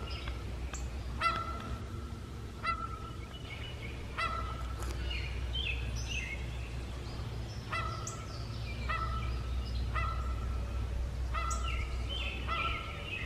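A goose honking over and over, about one call a second.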